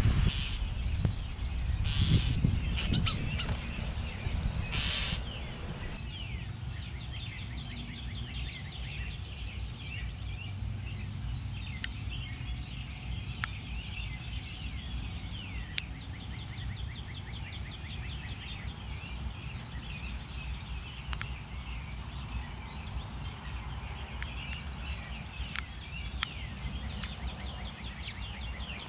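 Small wild birds chirping and twittering, with a short, high call repeating every second or two, over a steady low rumble of wind. Gusty rustling is louder in the first few seconds.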